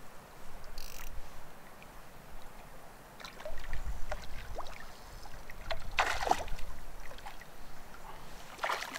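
Lake water lapping against the rocky shore, with wind rumbling on the microphone. A brief rustle comes about a second in and another around six seconds in.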